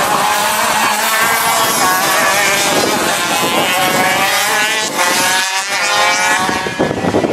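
Several two-stroke gearbox racing karts running at high revs past the microphone, their overlapping engine notes rising and falling as they drive through the bend.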